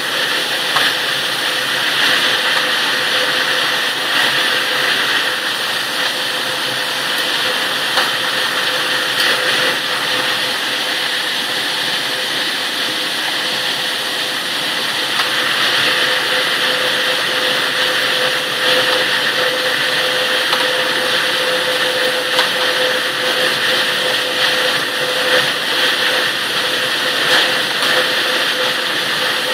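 Steady drone of a sorghum processing line's machinery running, with a steady hum and scattered light ticks.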